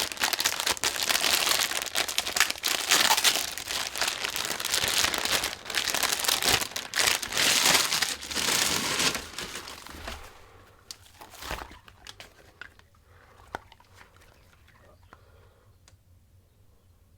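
Packaging crinkled and torn open by hand: dense crinkling and tearing for about the first ten seconds, then dying away to a few faint taps and rustles.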